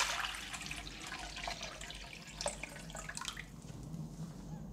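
Water being poured into an ackie monitor's water bowl, the pouring trailing off in the first second, followed by a few light drips and small clicks.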